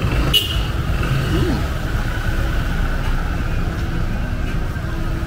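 City street traffic rumble, steady and low, with a sharp click about half a second in.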